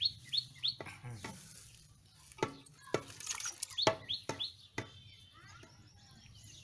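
Hands sloshing and splashing in a pot of hot water while plucking a scalded chicken, with a few sharp splashy knocks. A small bird chirps in quick runs of three or four short falling notes near the start and again about four seconds in.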